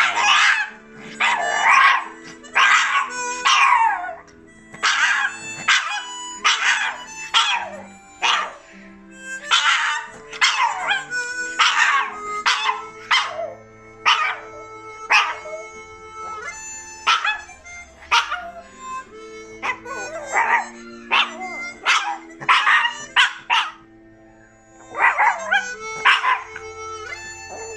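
A chihuahua howls along to a harmonica in a string of short, yelping howls, each sliding down in pitch. The harmonica holds steady notes underneath. The howling breaks off briefly near the end, then resumes.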